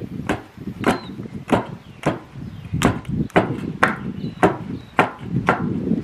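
A wooden-handled hand tool chopping at the ground under the container's edge: about ten sharp strikes, roughly two a second.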